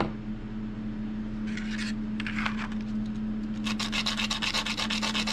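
A short piece of bamboo fondue stick rubbed back and forth on sandpaper. There are a couple of brief scrapes, then a fast run of short sanding strokes for the last second and a half.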